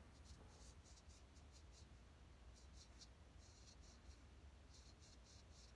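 Faint scraping of a straight razor cutting through two days' stubble on the neck, in short strokes that come in quick runs of several a second.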